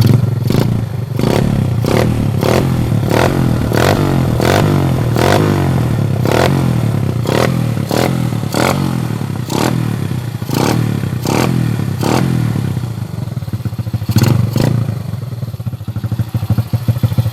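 Modenas motorcycle engine running through an Apido aftermarket exhaust with a standard-cut, large-hole outlet, holding a steady low note. Sharp clattering knocks come about twice a second through most of it, pausing briefly near the end.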